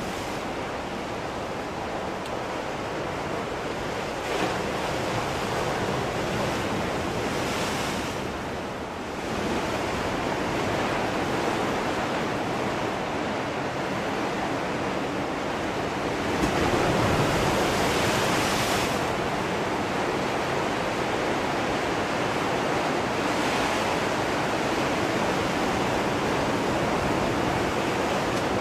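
Ocean surf: waves breaking and washing up the shore in a steady rushing wash, with a louder surge a little past the middle.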